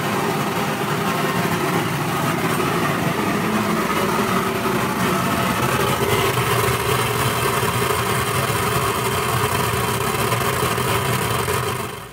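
Satake EVOLUTION MIR optical sorter running steadily while sorting pecan pieces, a constant mechanical hum and hiss with several steady tones in it.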